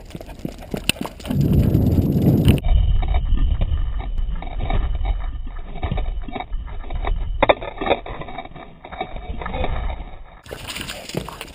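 Low rumbling wind and handling noise on a GoPro HD Hero 2 carried close to the ground on a monopod while moving at a jog, with scattered taps and scrapes on top.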